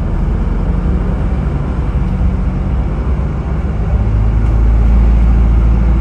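Route bus engine and road noise heard from inside the cabin while driving, a steady low drone that grows louder about four seconds in.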